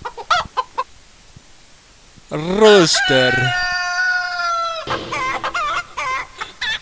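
Chicken clucking briefly, then a rooster crowing once in a long, drawn-out cock-a-doodle-doo about three seconds in, followed by more short clucking calls.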